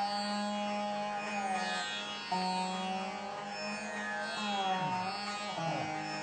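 Indian classical instrumental music: a plucked string instrument plays long notes that bend in pitch over a steady drone, with fresh plucks near the start and about two seconds in.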